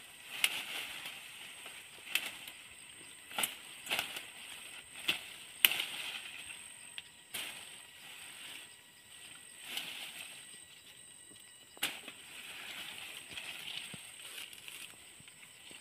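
Leafy vines rustling as long green pods are picked by hand, with sharp snaps every second or two as stems break, about eight in all.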